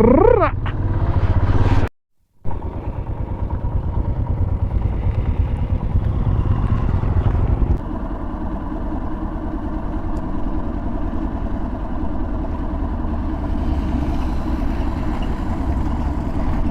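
Motorcycle engine running with rapid, even firing pulses as the bike is ridden, with wind noise over it. The sound cuts out for a moment about two seconds in, and the engine note changes slightly about eight seconds in.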